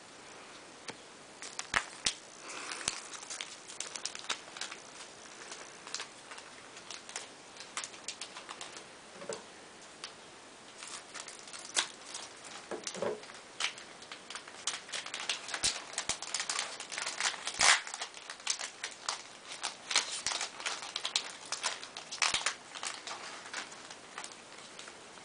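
Yu-Gi-Oh trading cards and their booster-pack wrapper being handled: a run of sharp clicks, snaps and light rustling. It is sparse at first and gets much busier about halfway through.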